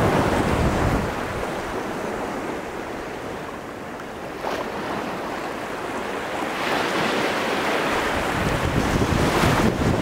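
Ocean surf washing against rock cliffs, with hard wind buffeting the microphone. The wind rumble eases in the middle and gusts up again near the end, and waves surge through twice late on.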